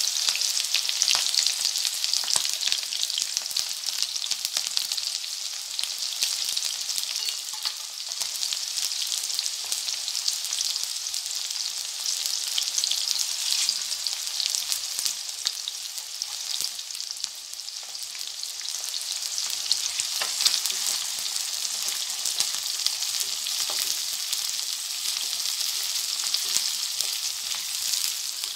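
Small onions (shallots) frying in hot oil in a kadai: a steady sizzle with fine crackling. Dried red chillies drop into the oil and a spatula stirs the mix, adding a few scrapes and ticks.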